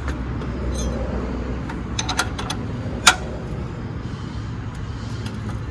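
Hand tools working on a truck's front suspension: a few light metal clicks, then one sharp metallic knock about three seconds in.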